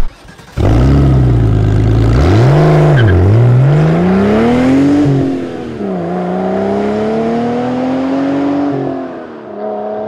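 Car engine starting up suddenly, blipping once, then accelerating through the gears: the pitch climbs, drops at a shift around five seconds in, climbs again and drops at another shift near the end.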